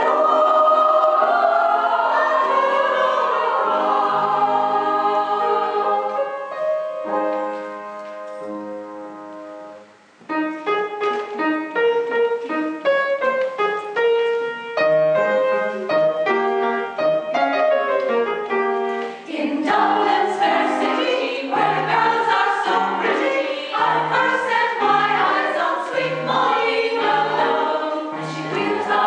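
Choral music: held, sung chords that fade away about ten seconds in, followed by a new section of short, separate notes that becomes fuller about twenty seconds in.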